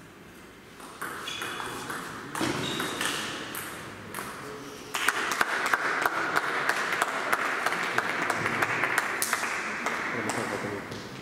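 Scattered applause from a small crowd in a sports hall, starting about five seconds in and fading near the end.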